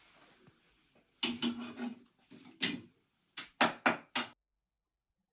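Hard objects clattering and clinking at the hearth, a run of sharp knocks beginning about a second in, then the sound cuts off abruptly.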